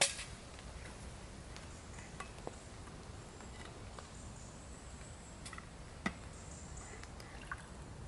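Scattered small clicks and knocks of a metal flask and cup being handled, with one sharp click at the very start and a smaller one about six seconds in, over a faint steady woodland background.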